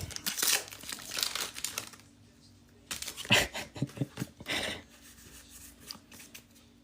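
Foil wrappers of Pokémon booster packs crinkling and tearing open, in two spells of rustling: one at the start and another about three seconds in, then faint handling.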